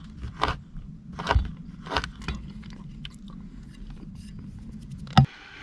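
Knife blade scraping flakes off a bar of dark chocolate, a run of short scraping strokes that thin out into faint ticks. A single sharp knock near the end.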